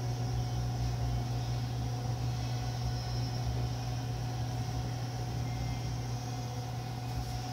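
Steady low hum with a faint even hiss: room noise, with no music or voice.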